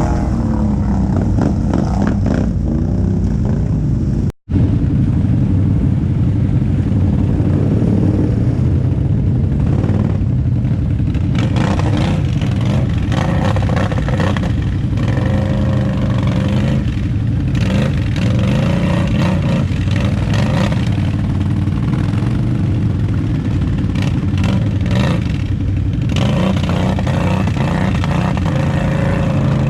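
ATV engine running and revving up and down as it rides rough trail, with scattered rattles and knocks from the machine. The sound cuts out completely for a moment about four seconds in.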